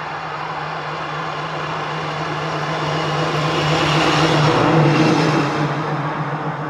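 Motor vehicle passing: a steady engine drone that grows louder to a peak about four to five seconds in, then fades.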